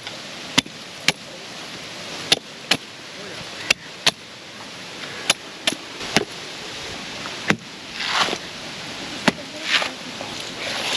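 A machete chopping into a coconut: about a dozen sharp strikes at uneven intervals. In the last few seconds there are a few brief scraping sounds.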